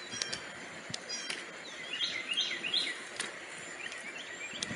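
A songbird chirping outdoors: a quick run of short, falling chirps about two seconds in, with fainter ones later, over a steady background hiss and a few sharp ticks.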